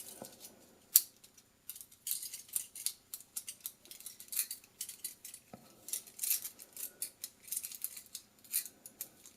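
Die-cast metal toy handcuffs clicking and scraping as the cuff is squeezed shut around a wrist, the ratchet catching notch by notch. A string of light metallic clicks, the sharpest about a second in.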